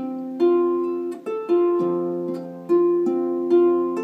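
Double strung harp being plucked, with a Scottish-style figure played note by note. Each note rings on under the next, with a fresh pluck about every half second.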